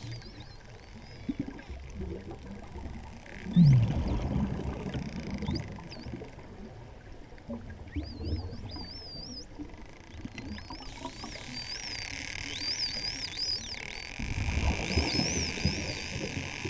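False killer whales whistling underwater: many short whistles that rise and fall, few at first and coming thick and fast from about eight seconds in. They sit over a low rush of water noise, which swells louder about three and a half seconds in and again near fifteen seconds.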